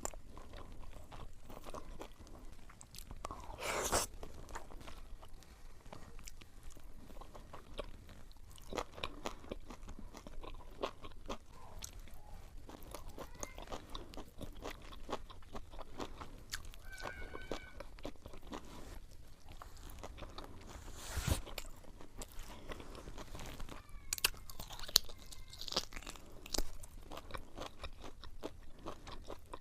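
Close-up mukbang eating sounds: a person chewing crunchy food, with dense crisp crunches going on throughout and a few louder bites along the way.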